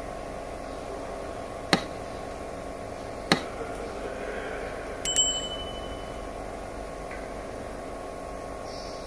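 Sharp metal clicks from a Toyota 1GR-FE piston, its rings and connecting rod being handled: single clicks about 1.7 and 3.3 seconds in, then a quick double click with a short ringing metallic ping about 5 seconds in, over a steady hum.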